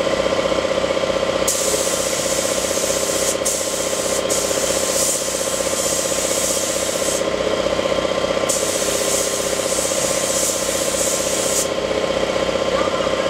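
Air compressor running steadily with a regular pulsing beat. Over it come two long spells of compressed air hissing through a paint spray gun: one of about five seconds starting a second and a half in, and one of about three seconds starting a little past eight seconds.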